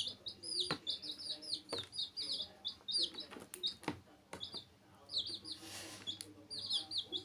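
Several baby chicks peeping continuously in short, high chirps, many a second, with a few sharp taps as they peck feed off the plastic tub floor.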